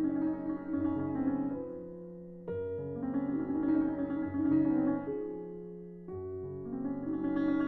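Slow piano music: sustained chords, with a new phrase struck about every three and a half seconds and fading away before the next.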